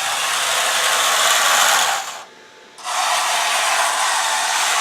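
Electric drive motors and metal dual-ratio gearboxes of an RC tank hull whirring at speed, run in two stretches with a short break about two seconds in. The gear noise is fairly even and not harsh: the steel gearboxes have been lapped and sound little different from brass ones.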